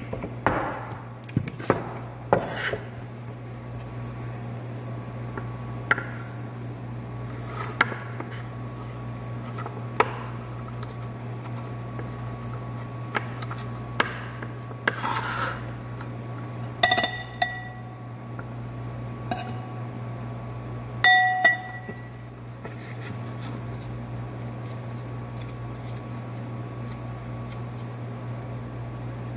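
Kitchen work at a counter: a wooden rolling pin knocks and rolls over dough sheets, with scattered light taps and two ringing clinks of dishware, over a steady low hum.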